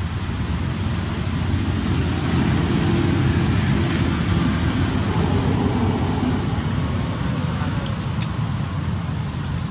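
Steady rumbling background noise, heaviest in the low range, with a few faint clicks about eight seconds in.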